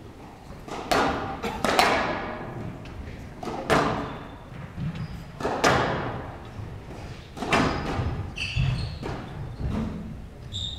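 Squash rally: the ball struck by rackets and smacking off the court walls in sharp, echoing hits, about one every one to two seconds.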